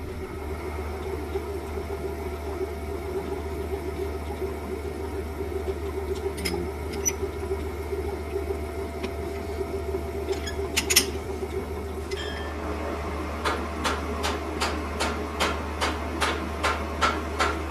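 Metal lathe running with a steady motor hum, with a few sharp clicks. About twelve seconds in, a regular ticking starts, roughly two to three ticks a second.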